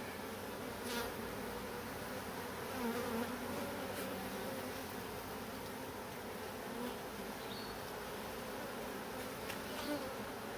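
Honeybees buzzing as a steady, many-voiced hum around an opened hive.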